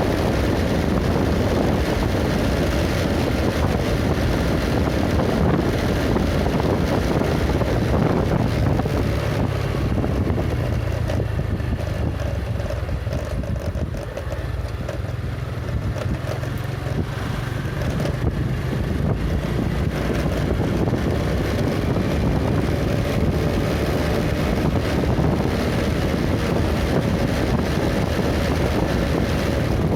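Steady wind noise buffeting the microphone over a vehicle's engine and road noise while travelling. It gets a little quieter for several seconds in the middle.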